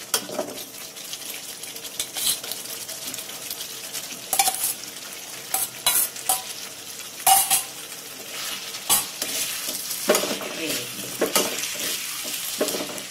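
Potato pieces tipped into a sizzling iron kadhai of frying spice masala and stirred in with a steel ladle. Sharp metal clinks and scrapes of the ladle and a steel bowl against the pan come several times over the steady sizzle.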